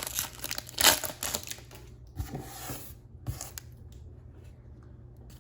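Foil wrapper of a Bowman baseball card pack crinkling and crackling as it is pulled open, sharpest about a second in, then fainter rustling.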